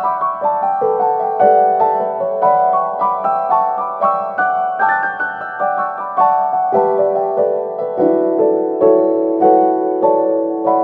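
Background music: solo piano playing a melody of quick struck notes, several a second, with a low note held from about eight seconds in.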